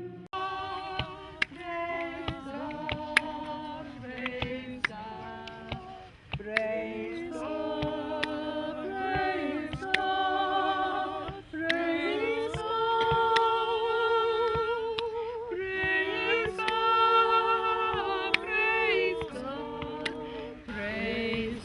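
Unaccompanied voices singing a slow hymn-like melody in harmony, a cappella, with long held notes and vibrato.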